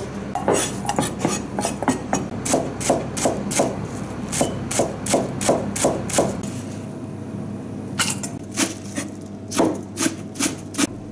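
Chef's knife slicing turnip leaves on a plastic cutting board: steady knocks of the blade on the board, about three a second, with a short pause past the middle before the cutting resumes.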